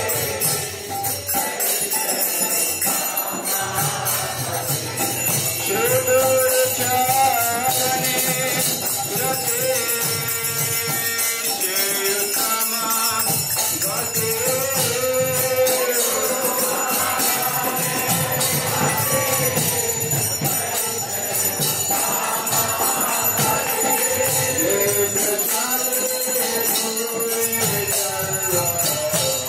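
Devotional kirtan: a voice sings melodic phrases over continuous jingling hand cymbals and a low drum beat.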